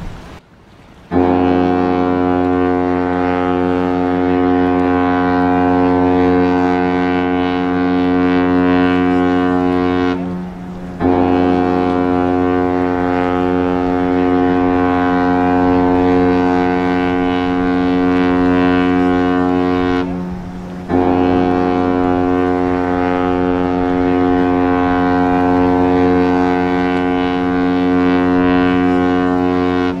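Cruise ship MSC Grandiosa's deep horn sounding three long, steady blasts, each about nine seconds long, with short breaks between them.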